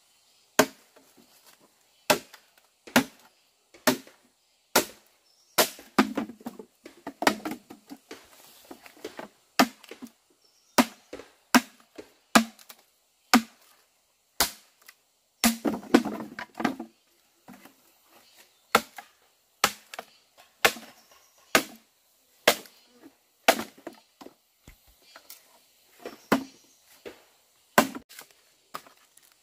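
Wood being chopped with a blade: a long run of sharp, separate blows, one or two a second at an uneven pace.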